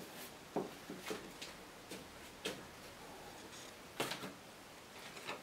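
Scattered light knocks and clicks of painting materials being handled at an easel, about eight in a few seconds, the loudest about four seconds in.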